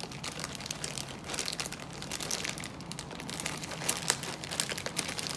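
Clear plastic bag packed with smaller bagged enamel pins, crinkling and rustling as hands pull and work at it, in dense irregular crackles.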